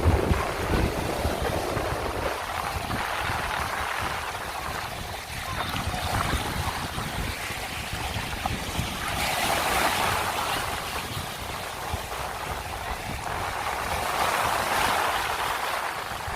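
Sea waves washing up onto a sandy beach, the surge rising and falling about three times, with wind rumbling on the microphone.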